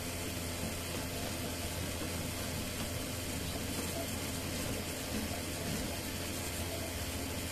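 3D printer running mid-print: a steady whirring hiss of its cooling fans with a low hum underneath.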